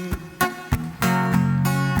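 Music: an acoustic guitar strumming chords, with no singing.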